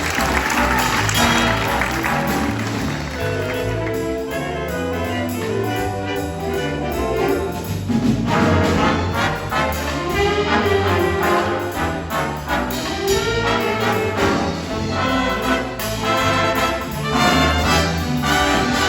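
High school jazz band playing a piece live, with the brass section of trumpets and trombones prominent over a moving low bass line.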